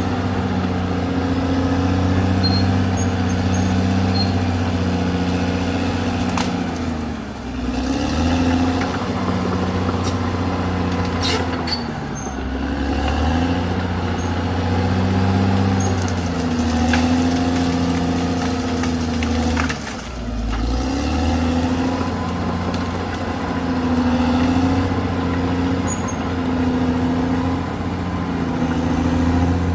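Caterpillar D6R XL bulldozer's diesel engine running steadily under working load. Its pitch sags and picks up again several times, deepest twice, about a third of the way in and again about two thirds in, as the engine lugs and recovers. A few short clanks sound over it.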